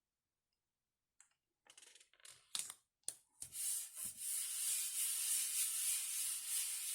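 Light rustles and taps of paper being handled, then, from about halfway, steady rubbing across paper as the glued base mat is pressed and smoothed down onto the card.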